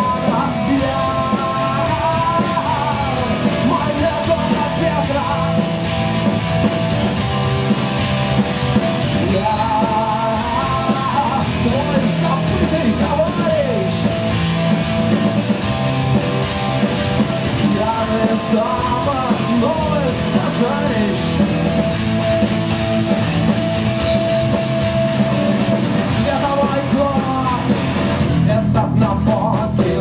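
Live rock band playing with electric guitar, bass guitar and drums, with a wavering lead line bending in pitch over a held note.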